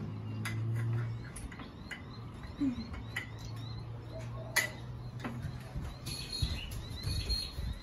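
Birds chirping in the background, with a few sharp clicks of a metal fork against a small tuna can and plate, the loudest about halfway through, over a low steady hum.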